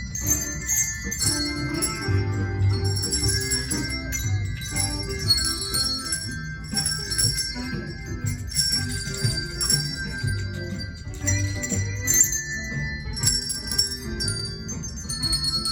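Handbell choir ringing a tune, many bells sounding in quick, overlapping notes that ring on, with lower notes held underneath.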